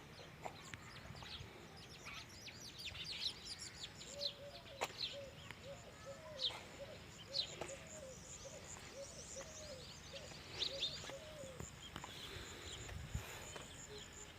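Birds chirping, with many quick high calls and, through the middle, a lower call repeated about twice a second, over a faint steady high tone.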